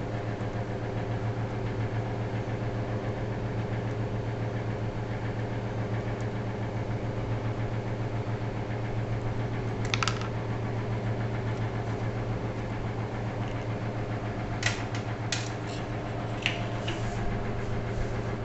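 A steady low machine hum, with a few light metal clicks as a bolt, nut and washer are handled at a battery terminal clamp: one about halfway through and several near the end.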